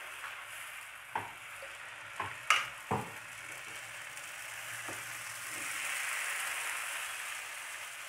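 Wheat-flour dosa batter sizzling on a hot tawa as it is ladled on and spread, the hiss swelling in the second half. A few sharp taps of the metal ladle come between about one and five seconds in.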